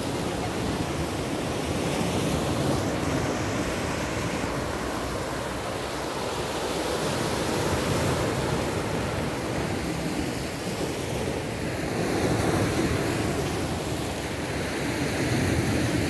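Sea waves breaking and washing over a rocky shore: a steady rushing surf that swells and eases every few seconds.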